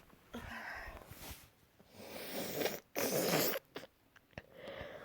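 A person sneezing: a drawn-in breath swells, then a sudden loud blast about three seconds in, with breathing before and after it.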